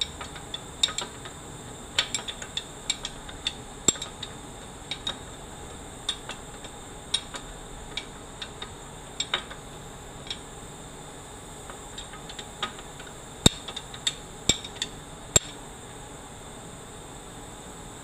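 Metal hand tools and bolts clinking and knocking as the 15 mm extension housing bolts come off a 4L80E automatic transmission: irregular sharp metallic clinks, the loudest a little past halfway. They stop a few seconds before the end, leaving a steady hiss.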